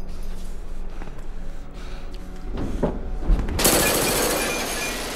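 Film sound effects over a low rumbling drone: a few faint knocks, a sharp hit and a low thump, then about three and a half seconds in a sudden loud rushing burst that dies away slowly.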